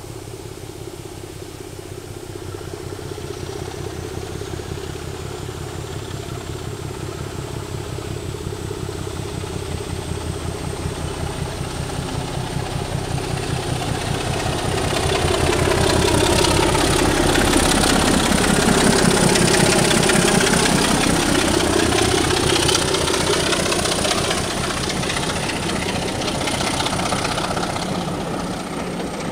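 Diesel locomotive engine running under power, growing louder as it approaches and passes, with a high steady whine over the rumble; the sound eases off near the end as its coaches roll by.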